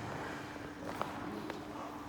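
Ice rink ambience: a steady low hum with the light hiss of skate blades on ice and two short clicks of blades striking the ice, about a second and a second and a half in.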